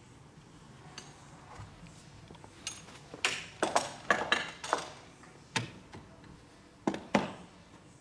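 A run of sharp metallic clicks and clinks, about a dozen, bunched together a few seconds in and followed by a few single ones: the steel parts of a glass-door patch lock being worked and handled.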